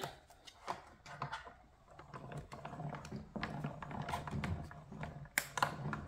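Hand-cranked die-cutting and embossing machine being cranked, the plates and die passing through its rollers with a run of irregular clicks that gets busier after a couple of seconds, with a sharper click near the end.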